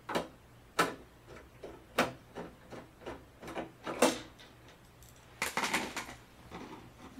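Screwdriver backing a screw out of the plastic back panel of an LCD TV: a series of sharp, irregularly spaced clicks as the driver is turned and regripped, with a denser run of clicks and rattles a little after five seconds in.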